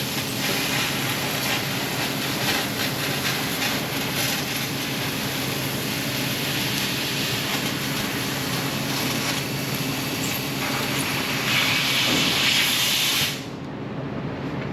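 Handheld laser cleaner stripping paint and rust from sheet metal: a steady crackling hiss over a low machine hum, stopping about 13 seconds in.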